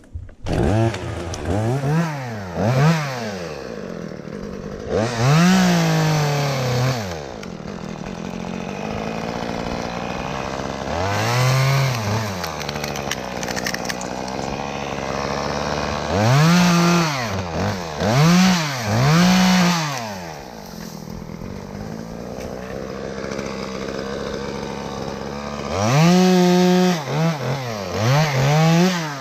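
Two-stroke chainsaw starting up about half a second in, then revved up and down about nine times with idling between the revs.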